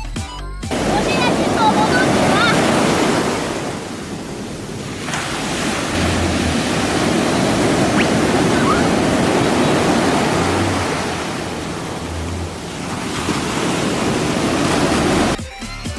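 Sea waves washing and wind buffeting the microphone, a loud rushing noise that swells and eases. Music plays briefly at the start and again near the end.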